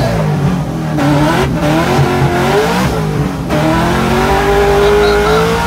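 Drift car's engine revving hard under load, heard from inside the cabin. The engine note rises and falls with throttle and gear changes, dipping briefly about one and a half and three seconds in, then climbs steadily toward the end.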